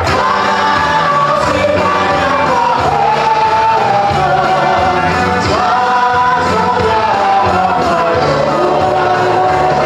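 Mixed group of worship singers, men and women, singing a gospel worship song together through microphones, with a steady musical backing under the voices.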